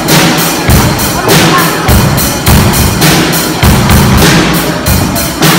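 Drum kit played in a steady beat, regular cymbal strikes over low drum hits.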